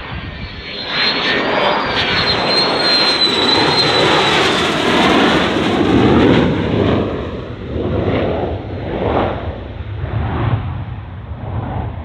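F-16 fighter jet engine passing close by. It builds to a loud peak about six seconds in, then fades, with a high whine over the noise in the first few seconds.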